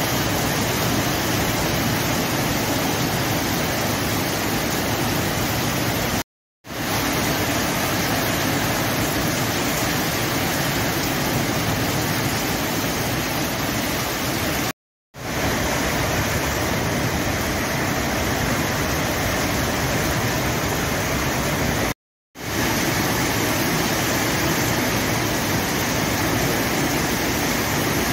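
Heavy downpour falling steadily, a dense even hiss of rain on the road and roofs. The sound cuts out briefly three times.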